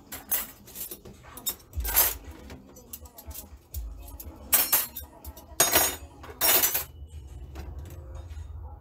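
Metal cutlery clinking as pieces are sorted and put away: several separate sharp clinks a second or more apart, some ringing briefly, the loudest around the middle and about two-thirds through.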